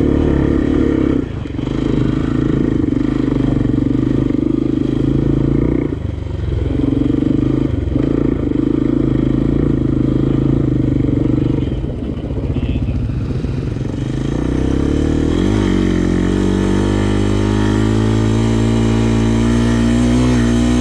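A single-cylinder four-stroke sport ATV engine pulling under throttle, easing off briefly about a second in, near six seconds and near twelve seconds. Around fifteen seconds in its revs rise, then it settles into steady running.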